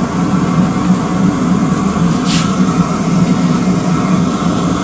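Steady, loud low roar of running workshop machinery, with a short hiss about two seconds in.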